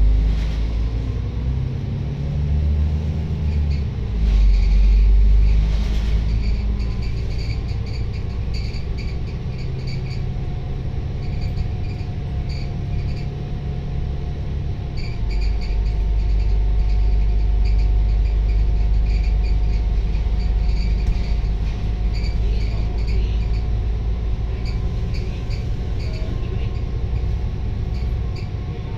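Volvo B9TL double-decker bus in motion, heard from the upper deck: a low, steady rumble of the diesel engine and drivetrain. The engine note rises and shifts over the first several seconds, then settles into a steadier, louder drone about halfway through, with light repeated rattles from the bodywork.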